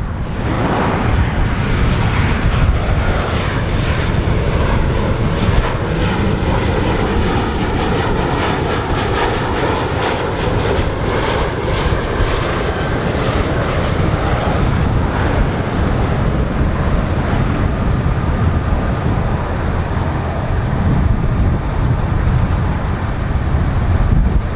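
Jet airliner on approach passing low overhead, its engines giving a loud, steady rumble. Partway through, a whining tone falls in pitch as the aircraft goes past.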